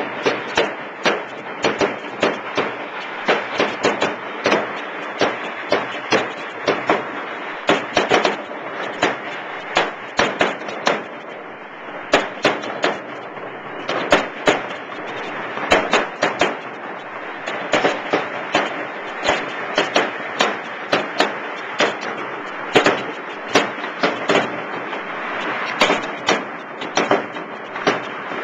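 Fireworks going off at close range: a dense, irregular barrage of sharp bangs, several a second, over a continuous crackle and hiss.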